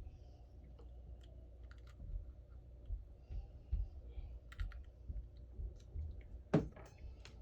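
Irregular small clicks and taps of repair tools prying at a Samsung Note 10+'s cracked back glass, with one louder click about six and a half seconds in.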